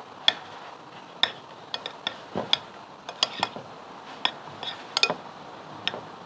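A spoon clinking and tapping irregularly against a bowl while stirring a thick slime mixture, with blue colouring being worked in.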